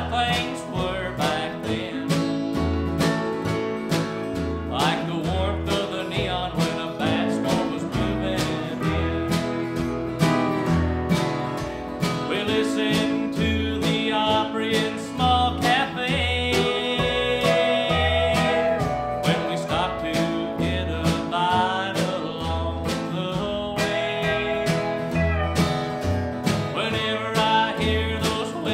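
Country band playing with a steady beat: an acoustic guitar strumming and an upright bass plucking a regular low line under a held melody.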